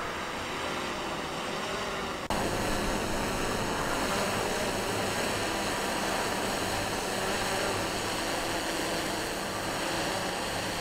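Distant helicopter running, heard as a steady rushing drone with a faint hum. It becomes louder at a cut about two seconds in.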